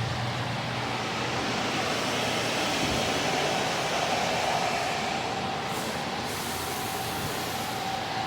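A steady rushing noise with a faint steady whine under it. A brighter hiss joins a little after five seconds in.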